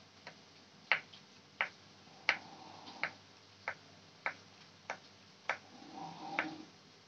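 Kitchen knife slicing a sausage into rounds on a wooden cutting board: a sharp tap each time the blade goes through and hits the board, about ten cuts at roughly one and a half a second. A short soft scraping sound near the end.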